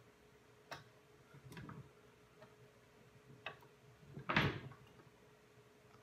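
A few light metallic clicks and taps from a hand tool being worked back and forth on an AR-15 rifle's pinned and welded bird-cage flash hider, with one louder knock about four seconds in.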